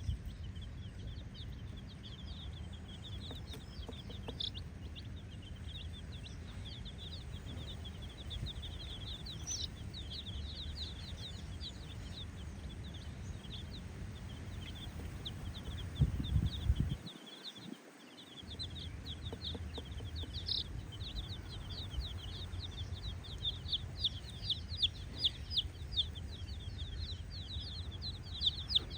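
A group of baby chickens peeping continuously, many short high peeps overlapping, over a steady low rumble. A single thump just past halfway is the loudest moment.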